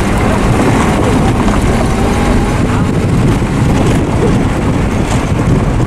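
Steady rumble of a vehicle driving slowly over rough pasture ground, with wind buffeting the microphone.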